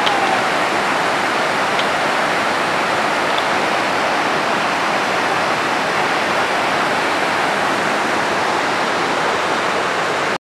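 Flood-swollen mountain stream rushing over boulders: a loud, steady rush of fast water, running high in spate after heavy rain.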